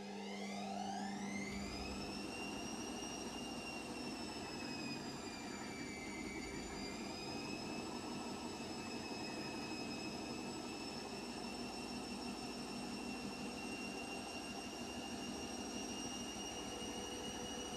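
Washing machine motor spinning the drum up: a whine rises in pitch over the first two seconds, dips slightly about six seconds in, then holds as a steady high whine over the rumble of the turning drum.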